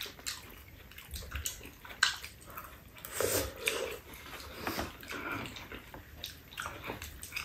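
Two people eating noodle soup: soft slurping and chewing, with scattered light clicks of chopsticks and spoons against the bowls.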